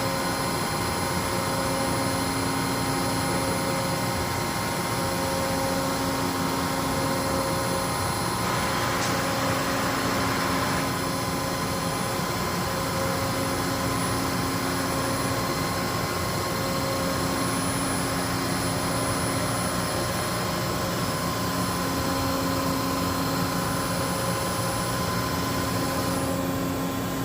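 SAMAG TFZ2-1000 CNC deep hole drilling and milling center running under power: a steady machine hum with several steady tones. A louder hiss comes in about eight seconds in and fades out near the eleven-second mark.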